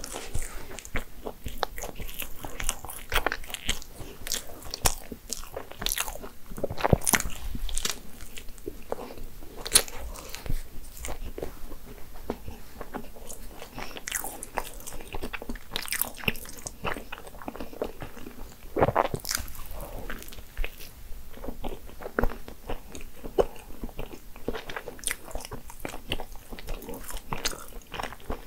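Biting and chewing a crisp, flaky croissant-style pastry: the crust crackles and crunches again and again between quieter chewing, with the sharpest crunches about seven, ten and nineteen seconds in.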